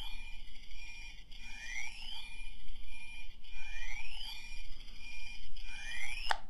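Thermal detonator prop's electronic sound module running its effect: a rising electronic whoop repeating about every two seconds over a steady electronic tone. A sharp click near the end cuts it off, consistent with the prop being switched off.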